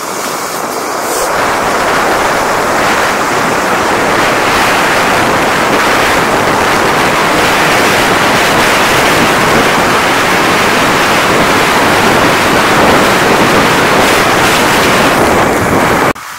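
Wind rushing over the camera's microphone as a snowkiter glides at speed across snow-covered ice behind a foil kite, a loud steady roar that builds over the first couple of seconds and cuts off suddenly near the end.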